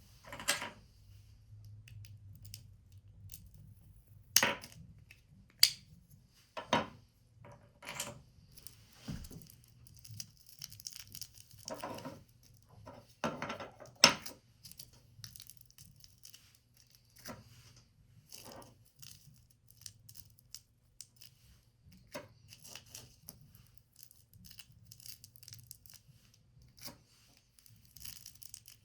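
Paper being cut, folded and handled: rustling and crinkling broken by irregular sharp snaps and taps, a few of them much louder than the rest.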